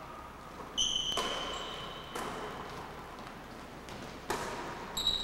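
A basketball bouncing and being passed on a hardwood gym floor: about four separate thuds, each echoing in the large hall. There are two high squeaks from sneakers, about a second in and near the end.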